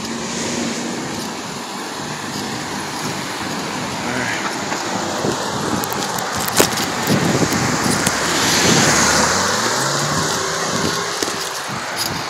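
City street traffic: cars running past with steady road noise, swelling louder a little past the middle as a vehicle goes by. A single sharp click sounds about halfway through.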